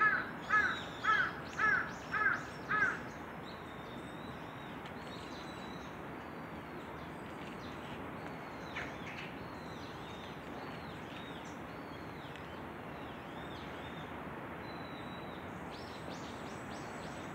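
A bird calls about six times in quick succession, about two calls a second, over the first three seconds. After that there is only faint high chirping of small birds over a steady outdoor background hiss.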